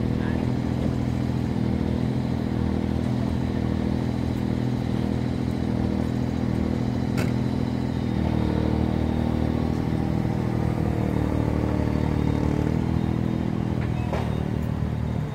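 KingKong Fly Egg 130 micro racing quadcopter in flight, its four 1105 brushless motors and propellers giving a steady buzz. The pitch shifts about eight seconds in.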